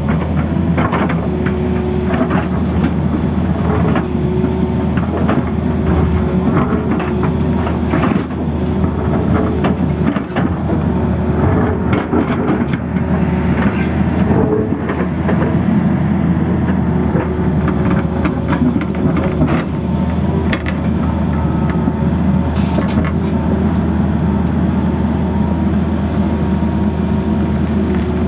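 Tata Hitachi hydraulic excavator's diesel engine running steadily under load, with scraping and irregular knocks as the bucket digs into rocky soil and dumps it.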